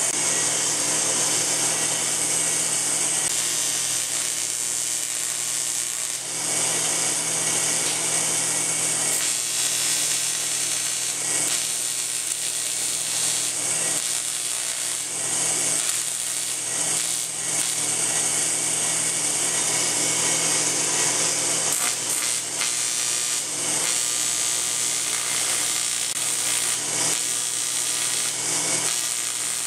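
AC TIG welding arc on aluminum: a steady electrical buzz with a bright hiss, running on with only brief small dips.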